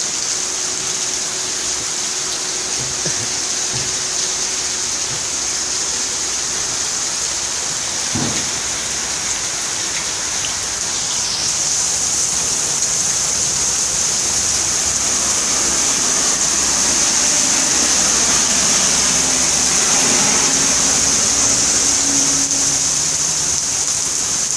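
Heavy tropical rain pouring down in a steady hiss that grows a little louder in the second half.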